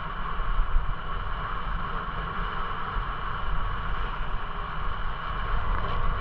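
Wind buffeting the microphone of a camera moving along a path: a steady rushing hiss over an uneven low rumble.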